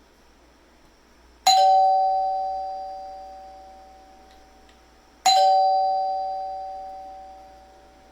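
A doorbell chime rings twice, about four seconds apart. Each ring is one sharp strike whose two tones ring on and fade slowly.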